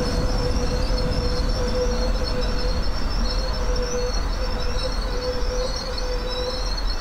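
Berlin S-Bahn class 485 electric train running out of sight, a low rumble under a steady mid-pitched tone and a wavering high-pitched wheel squeal.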